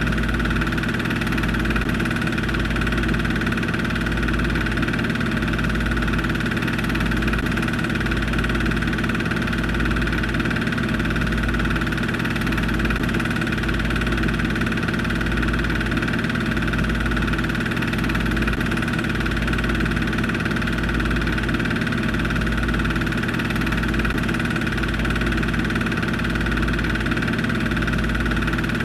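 Film projector running: a steady mechanical hum made of several held tones, with a regular low throb underneath.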